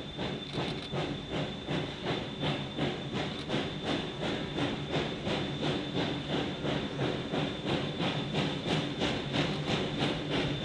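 Steam locomotive No. 108, a 2-6-6-2T Mallet tank engine, working steadily toward the listener with even exhaust chuffs, about three a second.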